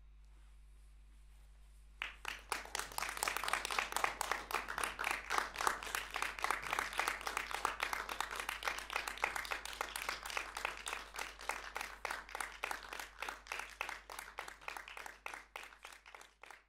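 Audience applause breaks out suddenly about two seconds in, after a quiet pause with a low hum, and carries on as dense clapping before thinning and fading at the end.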